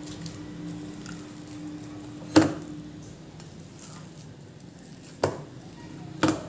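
A hand kneading and squishing a ground prawn-and-masala mixture in a stainless steel bowl. There are three sharp knocks against the steel bowl: a loud one about two and a half seconds in and two more near the end. A steady low hum stops about halfway through.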